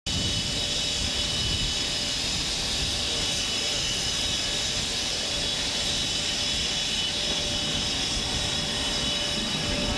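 Jet aircraft engines running steadily on an airport apron: a constant high whine over a low rumble.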